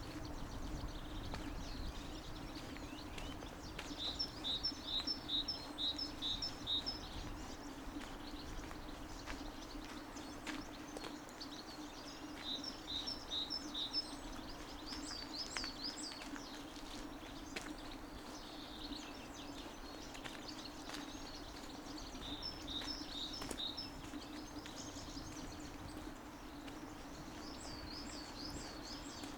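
A small songbird singing a repeated two-note phrase in runs of several quick repeats, several times over, above a steady low hum and outdoor background noise.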